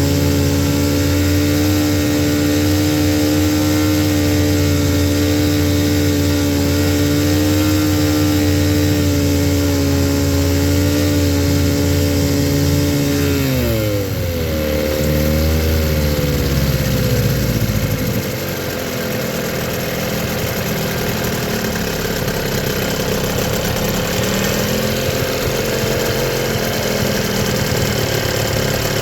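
1997 Johnson 9.9 hp two-stroke outboard running at a steady fast speed, then throttled down about halfway through, its pitch falling in two steps to a lower, slightly uneven idle.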